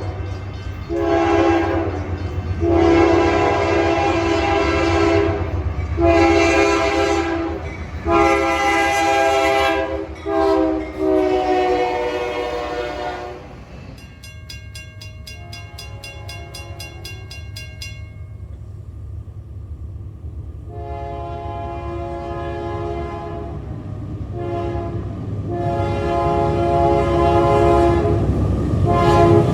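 Nathan K3LA three-chime locomotive air horn sounding a series of long and short blasts over the low rumble of the train. This is followed by a quieter stretch with a fast, regular ringing. The horn sounds again from about two-thirds of the way in, growing louder toward the end.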